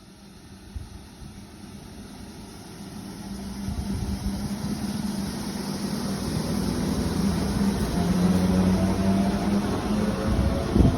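MEMU electric train accelerating, its traction motors giving a steady low hum over wheel and running noise that grows steadily louder, with a brief knock near the end.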